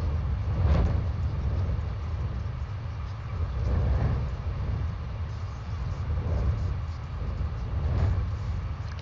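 Wind buffeting an outdoor microphone: a steady low rumble that swells in gusts several times.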